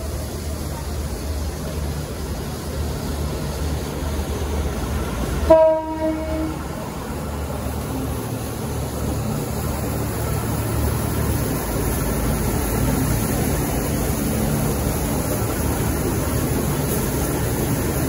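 V/Line VLocity diesel multiple unit arriving, its diesel engines and wheels running steadily. About five and a half seconds in it gives one short, low-note horn blast lasting about a second.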